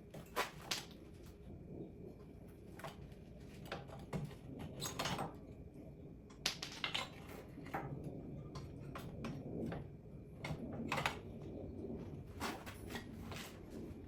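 Irregular light metallic clicks and knocks as a dirt bike's rear wheel is handled and slid back into the swingarm.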